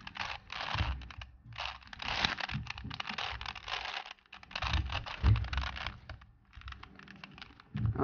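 Plastic layers of a 4x4 Rubik's cube being turned in quick runs of clicking and rattling, with short pauses between runs, as a move sequence is carried out.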